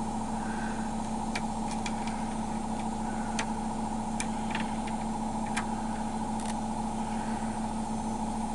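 A steady mechanical hum throughout, with a scattering of small sharp clicks and taps as a plastic roller wheel and its screw are handled and fitted onto an aluminium shower-door frame.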